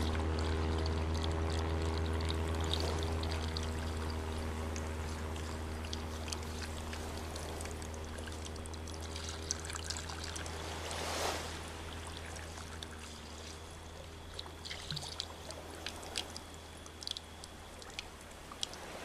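Tea pouring and trickling from a teapot into a cup, over a steady low hum that fades. Scattered light ticks run through it, with a brief whoosh about eleven seconds in.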